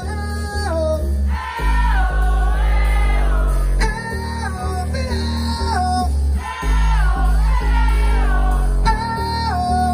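Live band music with a singer over keyboards and a deep bass line; the bass holds long notes that swell and drop back every two to three seconds.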